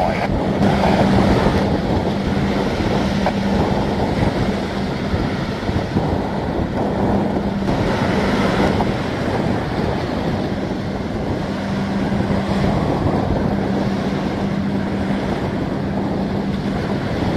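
Wind buffeting the microphone over choppy harbour water, with a steady low drone of a ship's diesel engine underneath that fades in and out.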